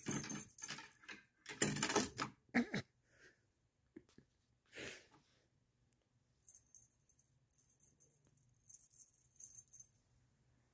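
Kitten batting a feather wand toy: loud, irregular rustling and knocking of the toy in the first few seconds, then a faint, on-and-off high-pitched rattle.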